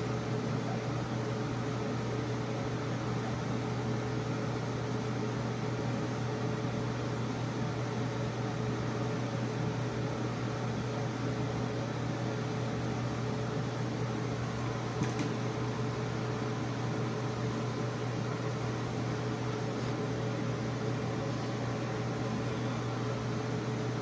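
Steady hum of a ventilation fan running in a small room, a constant low drone with a fainter steady tone above it. A brief faint click about fifteen seconds in.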